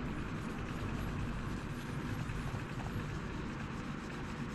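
Steady low mechanical hum, with steel wool being rubbed over a freshly gun-blued steel knife blade to polish off the bluing residue.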